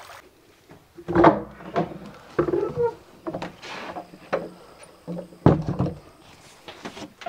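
Footsteps on a wooden plank porch floor: a slow, uneven run of thuds with short creaks from the boards.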